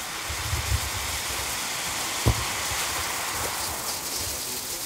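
Lesli Sutorobo Taki firework fountain burning with a steady spraying hiss and fine crackle. One short thump comes a little past two seconds in.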